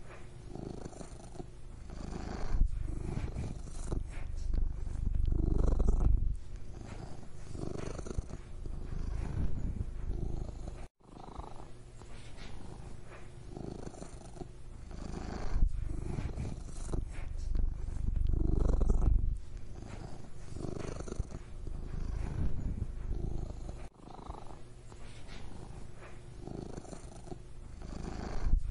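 Domestic cat purring close to the microphone: a continuous low rumble that swells and eases with each breath. The sound cuts out for an instant about eleven seconds in.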